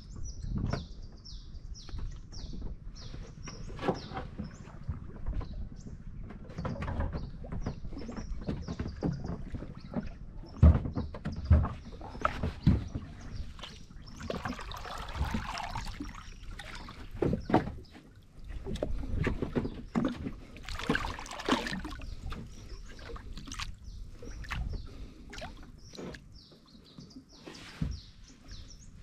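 Water sloshing and splashing as a floating stone-like block is pushed about and pressed down by hand beside a small wooden boat, with irregular knocks and thuds.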